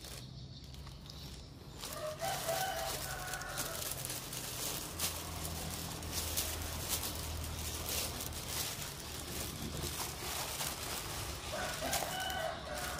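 A bird calling twice, each call lasting about a second and a half, one about two seconds in and one near the end, with scattered clicks and a low steady hum between.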